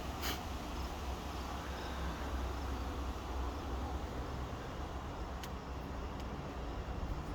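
Wind buffeting the microphone outdoors ahead of a storm, a steady low rumble under an even hiss, with a few faint light ticks.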